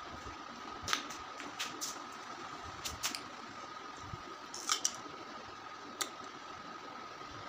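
Eating raw hog plum: short crisp bites and wet chewing clicks at irregular intervals, the loudest pair about five seconds in. A faint steady high-pitched hum runs underneath.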